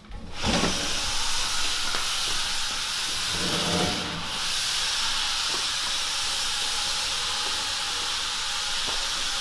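A heavy conveyor dryer being pushed across the floor on slide pads, the pads scraping with a steady hiss that starts suddenly. Low knocks come about half a second in and again near the four-second mark.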